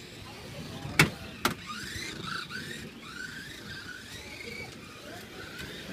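Kyosho Mini-Z RC cars' small electric motors whining, the pitch rising and falling with the throttle. Two sharp knocks come about a second in and half a second later, and these are the loudest sounds.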